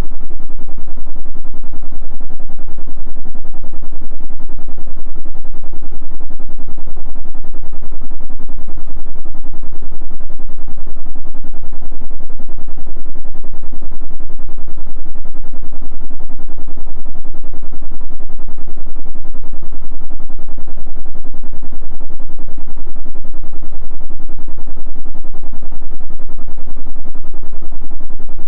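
Electric fan running steadily: a loud, unchanging low hum and rush from the spinning blades, with a fast, even pulsing.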